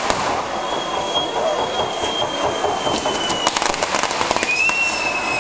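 Handmade spinning spark fireworks spraying sparks with a steady rushing hiss. A high whistle drifts slowly down in pitch for a couple of seconds, a cluster of crackles comes about three and a half seconds in, and a second whistle starts near the end.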